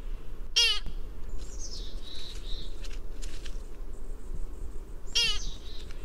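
American pika giving two short, sharp calls about four and a half seconds apart, with fainter high chirps between them and a steady low rumble of background noise.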